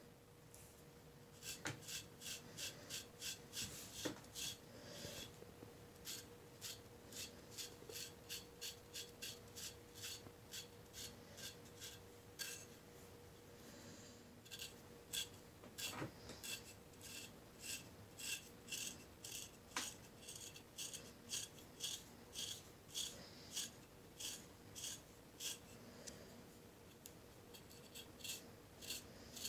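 LT Wright Kamrat knife scraped in quick, rhythmic strokes over dry psoriasis scales on the skin of a leg, flaking them off with a dry rasping sound, about three strokes a second. The runs of strokes pause briefly a little after the start and again about halfway through.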